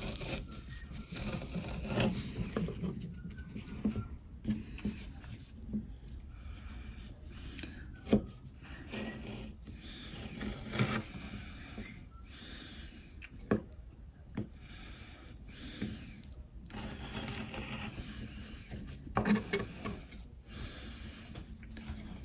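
Kitchen knife cutting peeled hard green bananas into fry strips on a wooden cutting board: irregular scraping cuts with an occasional sharp tap of the blade on the board.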